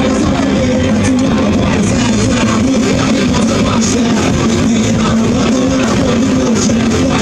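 Live rock band playing loudly through a PA, guitar to the fore, heard from the crowd; a steady instrumental stretch without clear singing.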